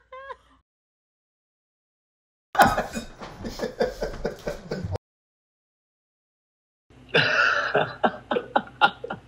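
Two recorded laughter clips played back one after the other. The first starts about two and a half seconds in and cuts off abruptly. The second, quick and pulsing, starts about seven seconds in.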